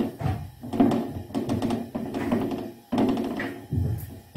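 Soft taps and thuds of a hand patting a radish-stuffed paratha flat on a non-stick pan, with music playing alongside.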